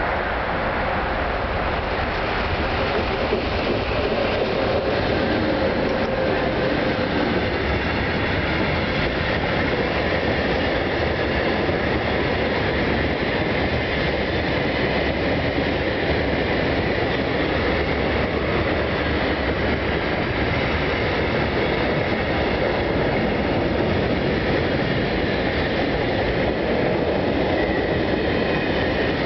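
A heavy 44-wagon coal freight train passing close by. The Russian-built locomotive goes by first, then the loaded hopper wagons roll past in a continuous, steady rumble and rattle of wheels on rail.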